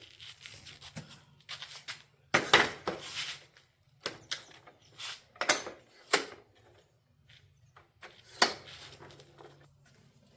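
Scattered knocks and clanks from handling a folding platform hand truck, its handle and frame being moved and set down; the loudest knocks come about two and a half seconds in and again near the end.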